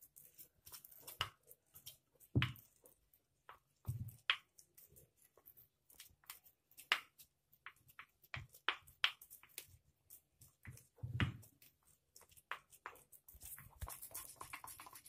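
Fingers mixing a ghee and cornflour paste in a small ceramic bowl: faint scattered clicks and taps against the bowl, with a few louder soft knocks, about two and a half, four and eleven seconds in.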